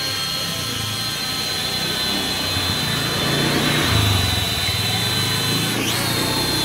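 JY019 toy quadcopter hovering, its small motors and propellers giving a steady high-pitched whine that swells in the middle. About six seconds in, the pitch briefly drops and rises again as the drone moves sideways.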